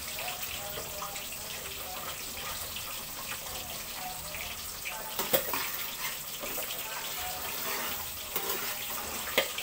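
Coconut-milk sauce simmering in a pan on a gas stove, a steady bubbling hiss, with a sharp knock of a utensil about five seconds in and another near the end.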